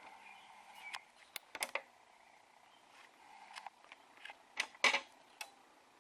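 Faint, scattered clicks and light knocks, the loudest a little before five seconds in.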